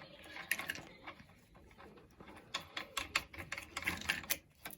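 Irregular clicks and light knocks of hand tools and the removed mower blade being handled while setting up to grind; the grinder is not yet running.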